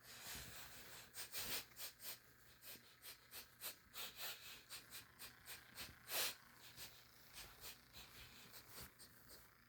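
Lion sniffing in a quick series of short sniffs, about two or three a second, with one longer, louder breath about six seconds in.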